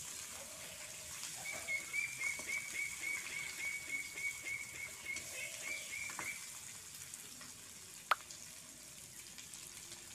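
Meat frying in an iron wok, a steady faint sizzle. A run of high, evenly spaced chirps, about four a second at one pitch, lasts about five seconds. Near the end comes a single sharp click.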